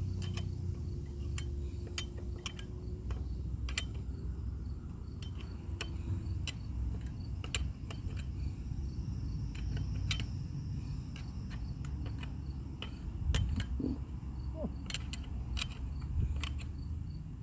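Irregular small clicks and taps of metal parts and tools being handled on an old Stihl chainsaw, over a low steady rumble.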